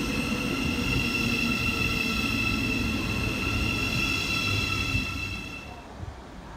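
Thameslink Class 700 electric multiple unit pulling away from the platform: the traction motors whine in several steady high tones over the rumble of the wheels. The sound fades about five seconds in as the train draws away.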